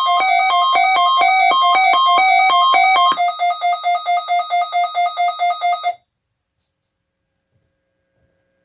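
Weather alert radio receiver sounding its electronic alarm, set off by a NOAA Weather Radio tone alert test. Loud, buzzy beeps alternate between two pitches, then pulse on one pitch about four times a second, and cut off suddenly about six seconds in.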